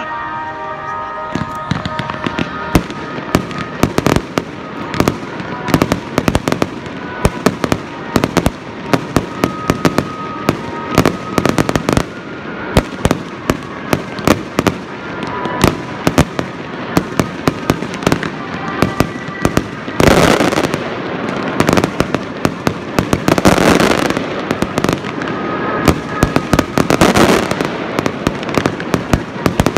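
Aerial fireworks display: a rapid, irregular string of sharp bangs from bursting shells. Dense, loud crackling swells about twenty seconds in and twice more near the end.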